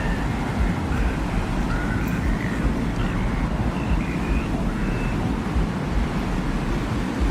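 Designed desert-wind ambience: a steady, deep rumbling wind with faint short high tones flickering over it.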